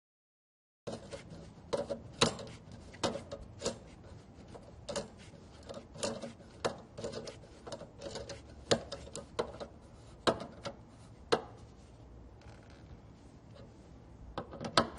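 Irregular clicks, taps and rubbing of parts being handled by hand while a washing machine's motor is put back together, starting about a second in.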